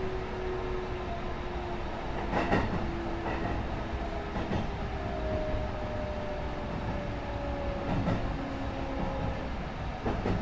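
Sanyo Electric Railway 6000 series electric train running, heard from inside the car: steady running noise with a faint motor whine slowly falling in pitch as it slows for a station. The wheels knock three times over rail joints.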